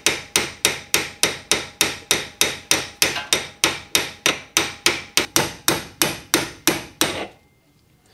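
Hammer blows on a steel punch driving the inner CV joint's tripod bearing off a Fiat 500 Abarth axle's splined shaft held in a vise. The sharp metallic strikes come in a rapid, even rhythm of about four a second and stop about seven seconds in, when the bearing comes free.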